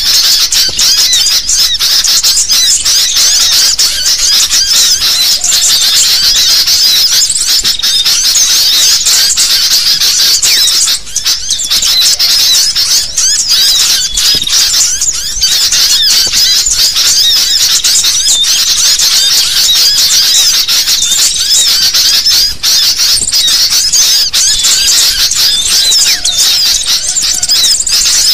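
A noisy flock of sooty-headed bulbuls (kutilang) chirping continuously in a dense, overlapping chorus: a bird-trapping lure call meant to draw wild bulbuls in.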